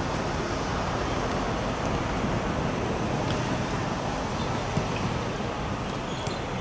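Steady background noise of a football stadium crowd, with wind on the microphone.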